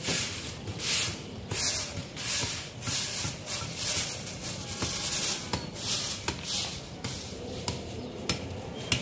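Rhythmic hand scraping strokes, roughly two a second, each a short hiss.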